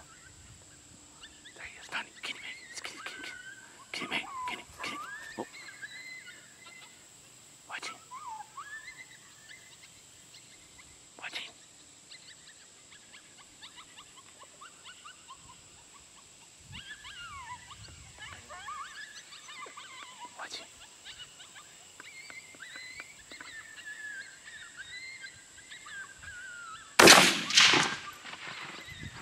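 Faint canine whimpering and yipping cries, then a rifle shot near the end, loud and sudden with a second crack or echo right after it.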